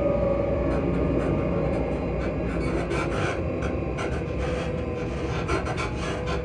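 Class 334 Juniper electric multiple unit's traction motors humming while the train runs, a steady tone that fades and drifts slightly lower in pitch, over a heavy wheel-and-rail rumble with irregular clicks and knocks.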